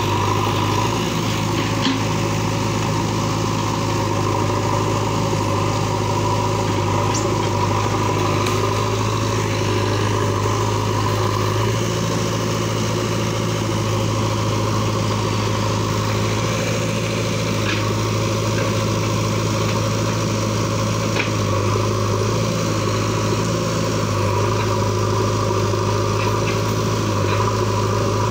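JCB backhoe loader's diesel engine running steadily at a constant speed, a low even drone that hardly changes.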